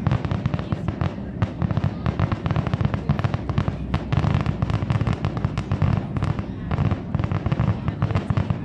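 Fireworks display going off: a dense, unbroken run of bangs and crackles, many a second, with a low rumble under them.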